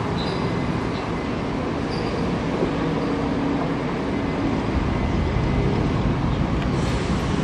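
China Railway DF11G diesel locomotives hauling a passenger train in slowly: a steady rumble with a faint engine hum, growing a little louder near the end.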